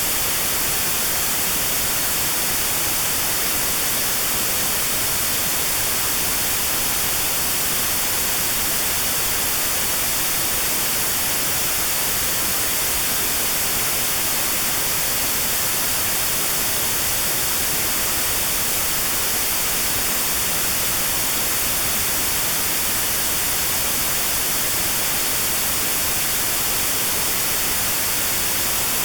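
Steady white noise with a narrow band around 4 kHz filtered out: notched sound therapy meant for tinnitus at 4 kHz. The hiss is even throughout.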